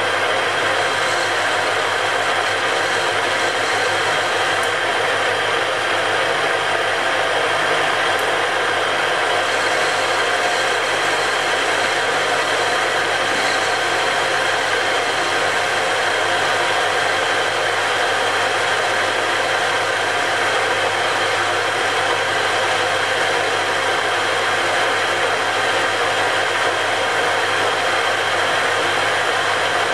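Metal lathe running steadily under power, its spindle turning a steel arbour in the chuck. The motor and gearing give a constant hum and whine with several held tones that do not change.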